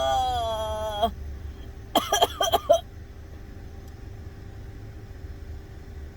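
A person gives a long wavering vocal moan while a nasal swab goes up the nostril. About two seconds in comes a quick cluster of four or five short, sharp vocal outbursts. A steady low hum sits under it all.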